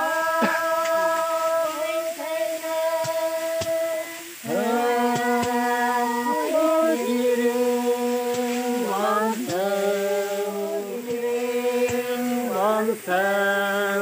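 Women's voices singing a slow, chant-like song with long held notes that slide up or down between pitches.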